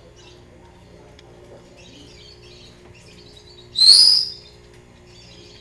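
Pet bird chirping faintly, then one loud, shrill whistle lasting about half a second, rising slightly, about four seconds in.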